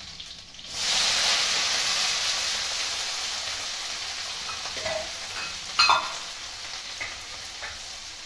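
Sliced onions dropped into hot oil in a kadhai: a loud sizzle bursts up about a second in, then slowly dies down as they fry. A brief sharp clatter cuts in a little past the middle.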